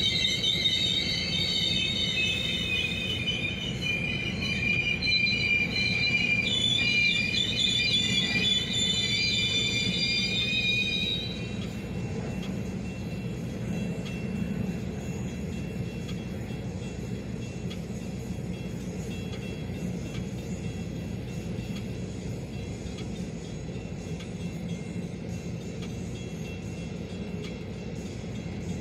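Metra bilevel passenger cars creeping past, their wheels squealing high and wavering for about the first eleven seconds. After that only a steady low rumble of the wheels on the rails remains.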